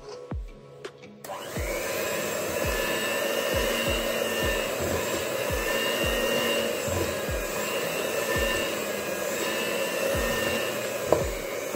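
Electric hand mixer with dough hooks switched on about a second in and running steadily, kneading flour into cottage cheese dough in a stainless steel bowl, with a brief knock near the end. Background music with a steady beat plays underneath.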